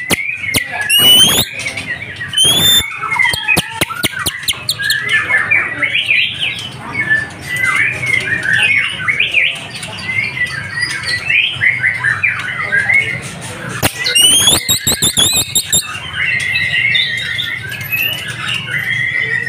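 White-rumped shama (murai batu) singing: a busy, varied run of whistled and chattering phrases with quick rising whistles, broken by runs of rapid clicking near the start and again about fourteen seconds in.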